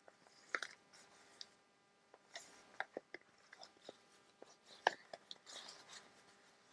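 Faint handling sounds of a sari silk strip being wrapped around a folded book-page document holder: soft rustles of fabric and paper with scattered small clicks, one sharper tap about five seconds in.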